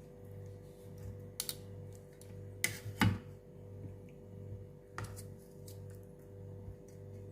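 A few sharp clicks and clinks of a cooking utensil handling pork on a grill, the loudest pair about three seconds in, over a steady low hum.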